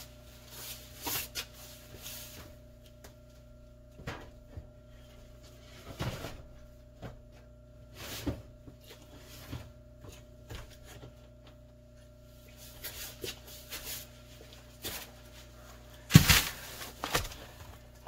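Scattered knocks and rustles of a worm bin being handled and put back in place, the loudest knocks about sixteen seconds in, over a steady low hum.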